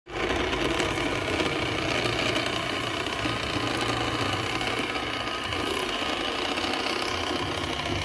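Electric motor and gearbox of a plastic RC toy garbage truck whirring steadily as it drives.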